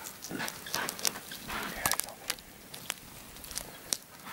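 Impala hooves clattering and scuffing on dry, leaf-strewn ground as the herd bolts: an irregular run of sharp clicks and crackles, loudest about one and two seconds in.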